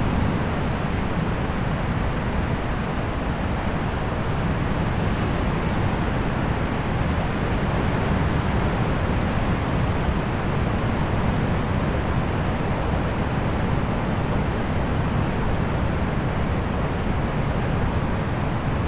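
Steady surf noise of sea waves on a beach, with short high bird chirps and quick trills recurring every second or two.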